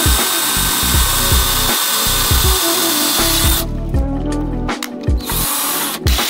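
A 19.2-volt cordless drill bores a pilot hole through the steel wall of a propane tank, its motor whining steadily. The whine stops about three and a half seconds in, then the drill runs again briefly near the end. Background music with a beat plays underneath.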